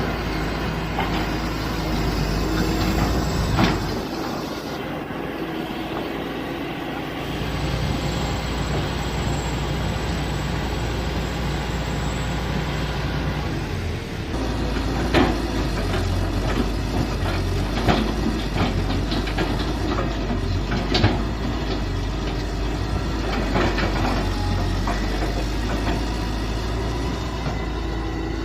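Mini excavator engine running steadily while digging, its low drone shifting a few times as the load changes, with several sharp knocks.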